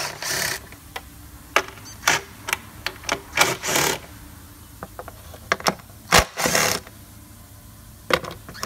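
Cordless power tool with a 10 mm socket spinning out the bolts of a top engine cover, running in three short spurts with sharp clicks and knocks of the socket and bolts between them.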